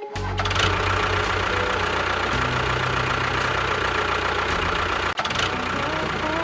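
An engine running steadily with a rough, knocking rhythm, starting abruptly and briefly dropping out about five seconds in.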